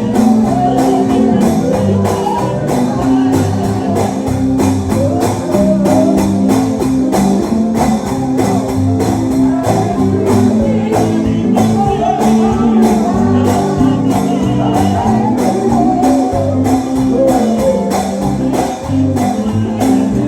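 Live gospel music from a church band: singing voices over guitar, bass and a steady beat with tambourine.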